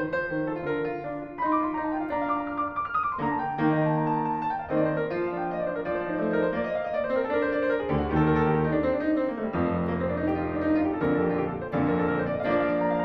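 Background piano music: a continuous run of notes and chords, with deeper bass notes coming in about two-thirds of the way through.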